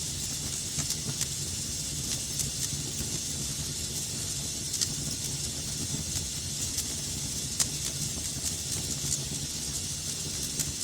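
Wood fire burning in a fireplace: a steady hissing with a low rumble, and sharp crackles and pops scattered throughout, the loudest pops about halfway and two thirds of the way in.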